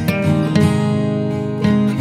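Background music led by acoustic guitar, with plucked notes left to ring.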